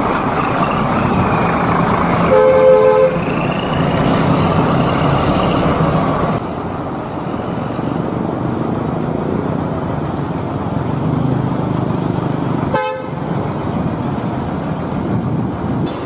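Bus engines running and traffic noise at a busy bus terminal, with a horn sounding once, briefly, between two and three seconds in.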